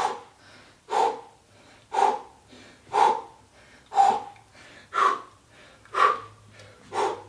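A man breathing out hard and sharply, about once a second in an even rhythm, with the effort of a scissors ab exercise.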